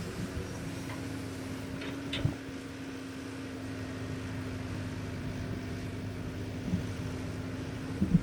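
Excavator working: a steady mechanical drone, with a clank about two seconds in and a couple more near the end.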